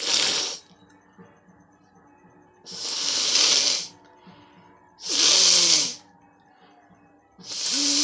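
A woman forcefully blowing her nose without a tissue, one nostril held shut: four long hissing blasts of air, each about a second long, roughly every two and a half seconds, the last two with a short throaty grunt.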